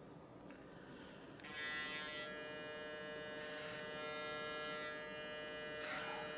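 Electric hair clippers start buzzing about a second and a half in and run steadily as they cut a taper into the hair at the back of the neck.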